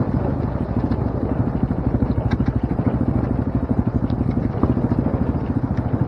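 ATV engine running steadily at low trail speed with a rapid, even pulsing note, the quad rattling over a rocky trail with a couple of sharp knocks about two and four and a half seconds in.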